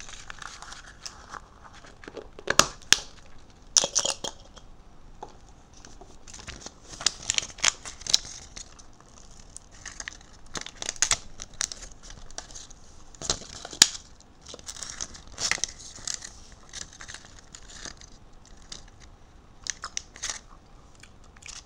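Crinkly plastic wrapping of a toy surprise egg being handled and crumpled by hand, in irregular crackling rustles with a few sharp clicks.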